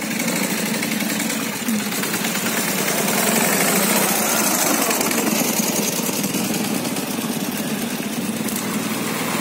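A Ural sidecar motorcycle's air-cooled flat-twin engine runs close by as it ploughs through a muddy puddle. Behind it, a Yamaha ATV's engine runs as it comes on through the water.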